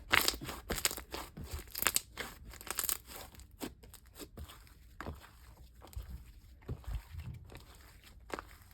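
Very flexible slime being handled, with a run of sticky clicks and small pops as air bubbles trapped in it burst. The clicks come thick and fast over the first three seconds, then thin out to scattered pops.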